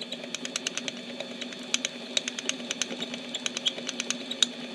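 Mini metal lathe running while it hobs a bolt: a steady motor hum under rapid, irregular sharp clicks and rattles as the machine vibrates during the cut.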